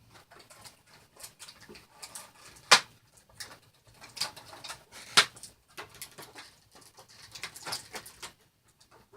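Cardboard box and plastic packaging of a vinyl figure being handled and opened: crinkling, rustling and scraping with scattered clicks, and two louder sharp snaps, about three and five seconds in.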